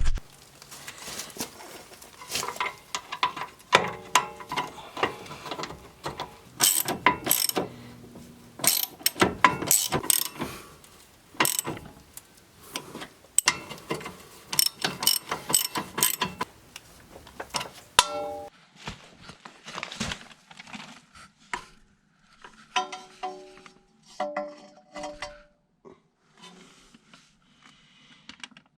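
Hand socket ratchet clicking in short runs, mixed with sharp metal clinks and knocks of tools and suspension parts, as a rear adjustable camber arm is fitted to a Honda Civic EG. The clicks come irregularly, thinning out in the last third.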